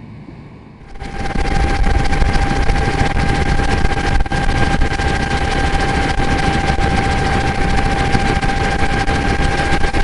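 Helicopter running, heard from aboard: loud steady engine and rotor noise with a steady whine, starting abruptly about a second in.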